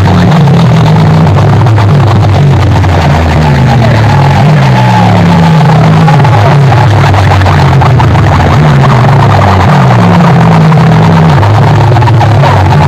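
Very loud electronic dance music with a heavy bass line stepping up and down in pitch, blasted from stacked horn loudspeakers of DJ sound rigs in a sound-box competition.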